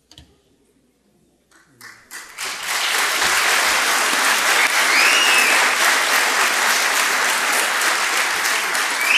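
Audience applauding: after a couple of seconds of near silence, the clapping starts and holds steady.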